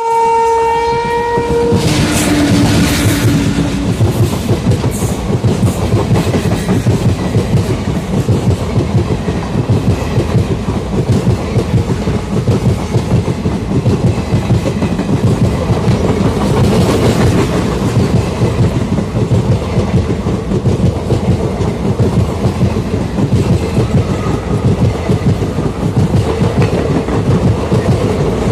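WAP4 electric locomotive sounding its horn, a high note for about two seconds then a lower note, then the locomotive and its passenger coaches passing close by on the next track: a steady rolling rumble with wheels clicking over the rail joints.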